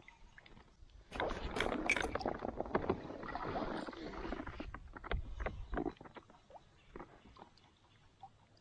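Water splashing hard at the surface for about three and a half seconds, starting about a second in: a fish striking and thrashing at a lure being reeled in beside the kayak. A few scattered drips and small knocks follow.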